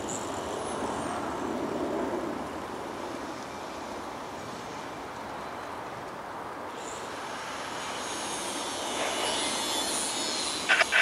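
EMD GP40-2 diesel locomotive running light as it approaches, its 16-cylinder two-stroke engine running steadily and growing louder in the last few seconds. Near the end its air horn starts a loud blast.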